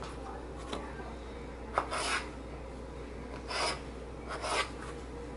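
Kitchen knife cutting through a raw red potato onto a plastic cutting board: a few short scraping strokes about a second apart, with a light tick of the blade.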